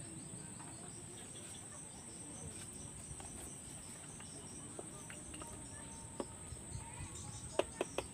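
A steady, high-pitched insect trill, with a few sharp clicks near the end.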